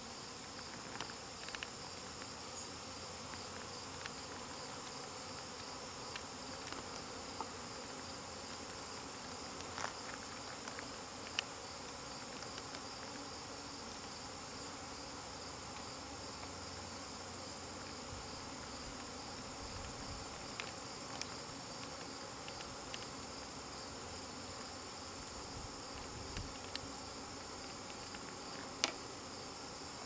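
Honeybees buzzing steadily around an opened top bar hive, with scattered light clicks and knocks as the wooden top bars are handled, one sharper knock near the end.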